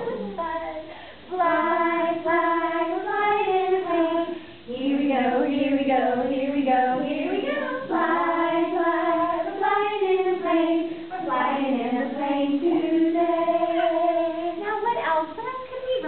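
A children's song sung in a high voice, in phrases of long held notes, pausing briefly about a second in and again near the four-and-a-half-second mark.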